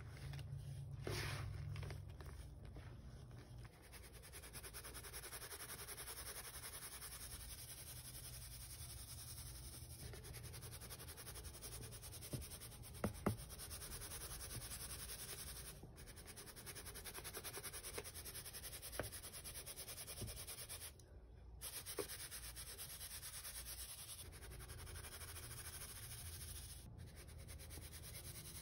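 Hands squeeze handfuls of baking soda for the first few seconds. Then the powder is shaken through a fine metal mesh sieve, a steady soft hiss with a fast, even shaking rhythm, and a few sharp clicks along the way.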